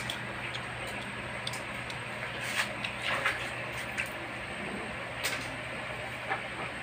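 Eating sounds: a boy biting and chewing fried pork held in his fingers, with scattered soft wet smacks and small clicks a second or so apart. A steady low hum runs underneath.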